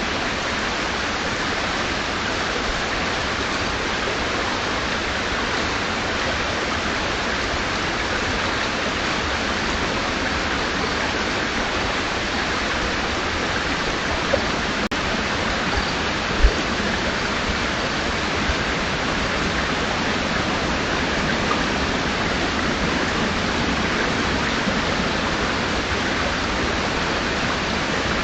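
River water running steadily, a constant rushing noise, with one short knock about halfway through.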